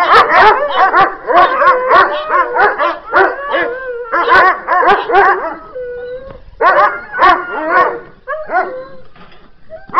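Several dogs barking in quick, overlapping barks, with a short drawn-out howl near the middle. The barking thins out and gets quieter near the end.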